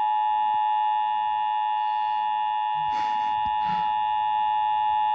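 Emergency Alert System attention signal: the steady two-tone alert tone of a broadcast emergency alert, held without a break and cutting off abruptly just after this stretch.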